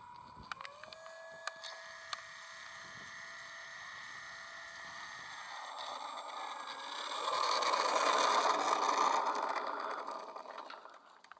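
Model aeroplane's motor and propeller running with a steady high-pitched whine, growing loud as the model taxis close past on concrete and then fading away near the end.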